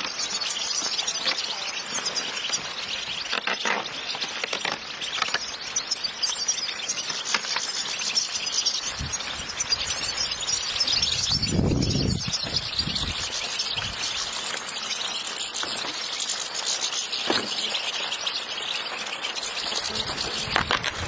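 Dense, continuous twittering of a large flock of caged European goldfinches, with a brief low rumble about halfway through.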